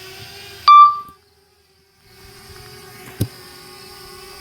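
DJI Mavic Mini drone's propellers humming steadily in flight. Less than a second in, a loud short electronic beep sounds, then all sound drops out for about a second before the hum comes back, with a sharp click a little past the middle.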